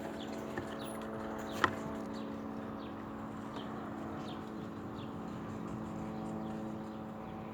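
Small birds chirping in short, falling notes over a steady low hum, with one sharp click about a second and a half in.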